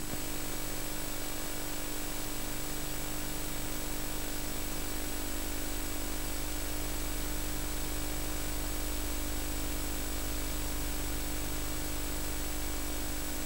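Steady hiss and low hum from a VHS tape's audio track with no programme sound on it, with a thin high whine held at one pitch throughout.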